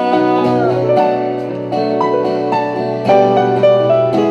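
Live music: the instrumental close of a song, with keyboard chords and sustained notes and a new chord struck every second or so.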